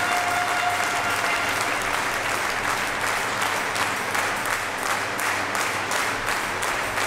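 Arena crowd of a few hundred spectators applauding with dense hand-clapping, and a held tone fading out about a second in.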